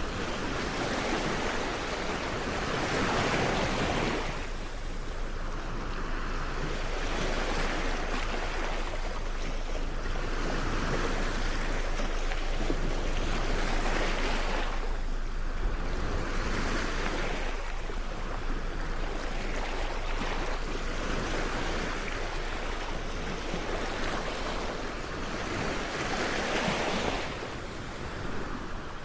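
Sea waves washing ashore, a steady surf noise that swells and fades every three to four seconds.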